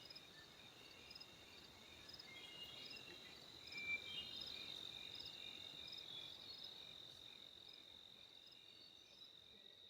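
Faint chorus of crickets: one unbroken high trill with shorter chirps repeating over it, about one a second.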